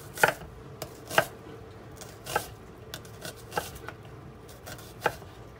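Chef's knife slicing an onion on a wooden cutting board. The blade knocks on the board in separate, uneven strokes, roughly one a second.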